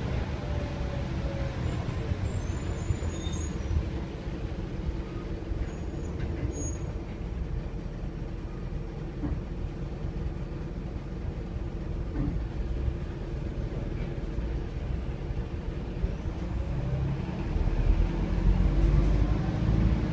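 Optare Versa single-deck bus heard from inside its saloon: a steady low rumble of the engine and running gear as it drives. Over the last few seconds the engine note gets louder and rises in pitch as the bus speeds up.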